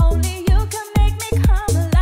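Dance-track playback of a sung vocal sample over a synth bass line that plays the root notes of the chords, with a steady kick drum about twice a second. The bass moving between root notes under the vocal implies a chord progression without any instrument playing chords.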